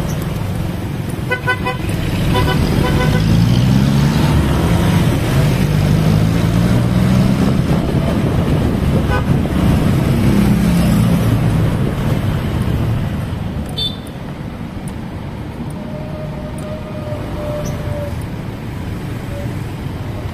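Road traffic: a vehicle engine speeding up twice, its pitch rising, over a steady rumble, with two quick runs of short horn toots about a second in.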